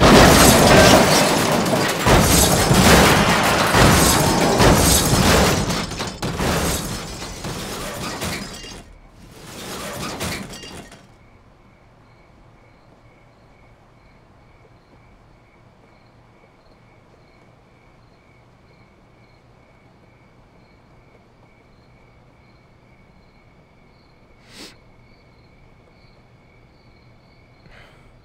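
Car crash: a car going off the road and rolling, a long run of heavy metal impacts and shattering glass for about eleven seconds. Then it goes quiet, leaving a faint, steady, high chirping and one short click near the end.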